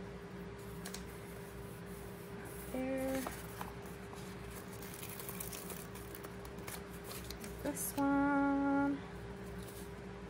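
Soft rustling and light clicks of sticker paper being peeled and handled. There are two short hummed notes, a brief one about three seconds in and a longer, louder one near eight seconds, over a low steady background hum.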